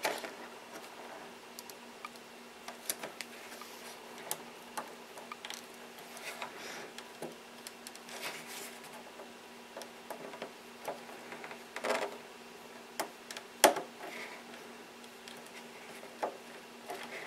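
Servo plugs and thin wire leads being handled and pushed into a receiver's ports: irregular light plastic clicks and rustles, with two sharper clicks about twelve and fourteen seconds in, over a faint steady hum.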